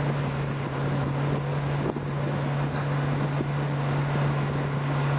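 Tow vehicle's engine running at steady revs, with wind buffeting the microphone.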